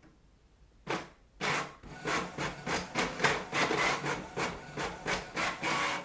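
Canon MAXIFY MB2720 inkjet printer printing a page: a click about a second in, then a steady rasping rhythm of about three strokes a second as the paper feeds and the print head shuttles back and forth.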